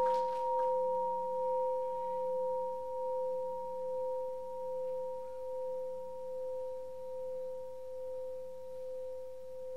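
Buddhist bowl bell ringing on after a single strike: a low steady tone with a higher overtone, fading slowly with a gentle wavering pulse about once a second.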